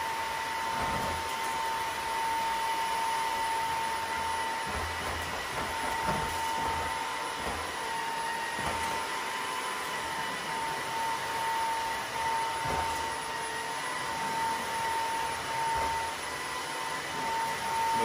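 TAB T6 Pro cordless wet-dry vacuum mop running steadily as it is pushed over loose chocolate chips on a hard floor: an even suction hiss with a steady high whine from the motor.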